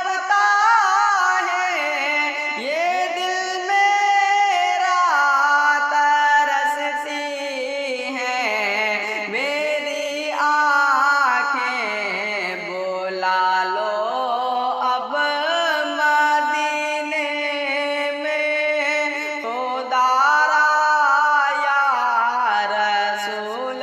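A naat, an Islamic devotional song, sung without instruments: long, ornamented vocal lines that waver and glide in pitch, with no drum beat.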